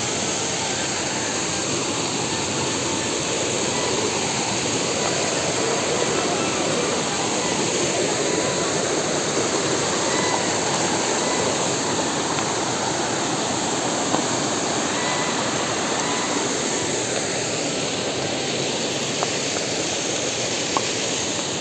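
Mountain waterfall cascading over boulders into a stream: a steady, unbroken rush of falling water.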